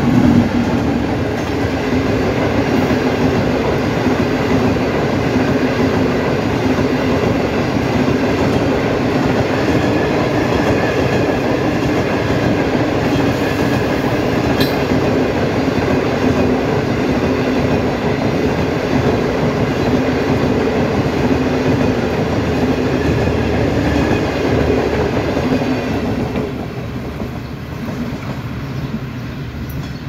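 Passenger coaches of a Pakistan Railways express train rolling past close by, their wheels running on the track in a loud, steady rumble. The noise drops off about 26 seconds in as the last coach goes by.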